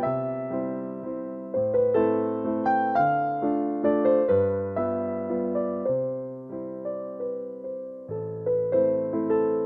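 Background music: a slow keyboard piece of piano notes that strike and fade over low bass notes changing about every two seconds.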